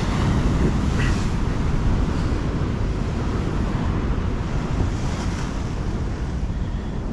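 Rough sea surging and breaking on a rocky shore, a steady rushing roar of surf, with wind buffeting the microphone.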